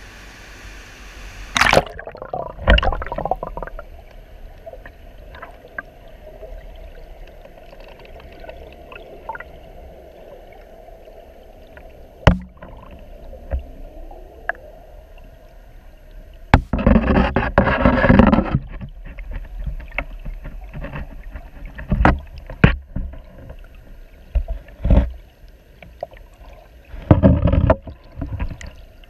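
River water rushing at the surface, which turns muffled about two seconds in as the camera goes underwater. Under the surface the current is a low rumble with scattered knocks and gurgles. Two louder rushes of turbulent water come, one about halfway through and one near the end.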